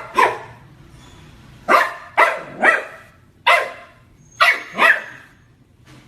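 Dog barking: seven short, sharp barks, one right at the start, then three in quick succession, a single bark, and a final quick pair.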